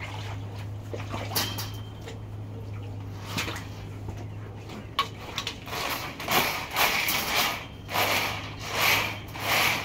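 RIDGID K-60 sectional sewer machine running 7/8-inch cable into a clogged areaway drain, with a steady low motor hum. From about six seconds in, the turning cable gives a rhythmic swishing scrape roughly every 0.7 seconds as it works at a blockage the plumbers suspect is grease-laden.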